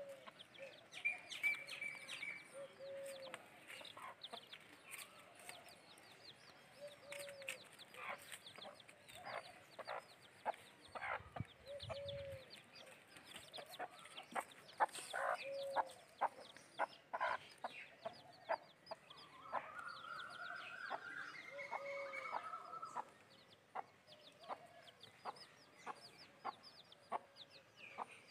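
Chickens clucking: a short low cluck every two or three seconds, with many short high chirps throughout and a few longer rising calls near the end.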